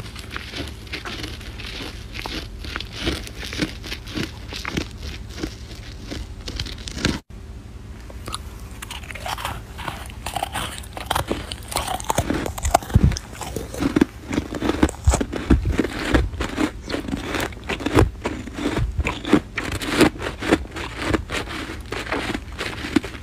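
Close-up crunching as mouthfuls of packed snow are bitten and chewed, in a rapid, irregular run of crisp crunches. About seven seconds in there is a brief break, after which the bites come heavier and louder.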